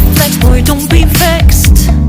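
Background pop music with a steady electronic beat and heavy bass.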